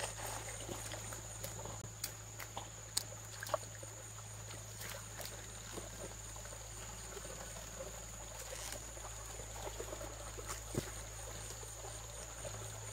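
Steady high-pitched insect drone, with scattered light clicks and taps.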